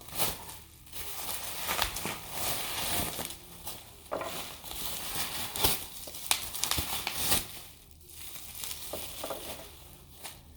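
Packaging being unwrapped by hand: irregular crinkling and rustling with sharp crackles, dying down near the end.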